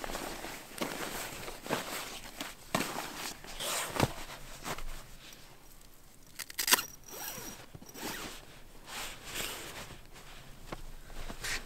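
Irregular rustling and scraping handling noises, with scattered knocks and a short, sharp rasp about six and a half seconds in.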